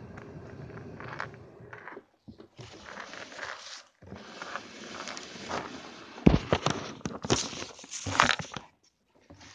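Camera handling noise: clothing rubbing and brushing over the microphone, with a run of sharp knocks and bumps about six to eight seconds in as the camera is grabbed and moved.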